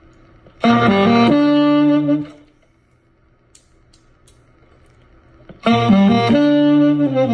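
Selmer Varitone tenor saxophone played through its amplifier: two short phrases of a few held notes, the first about a second long near the start, the second starting about two thirds of the way in and running on. Between them is a pause of about three seconds with only faint room noise.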